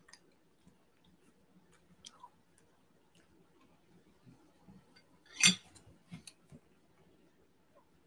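A metal fork making faint clicks and scrapes on a plate, with quiet chewing, while a man eats rice and chicken. One louder, short sound comes about five and a half seconds in, followed by a few small clicks.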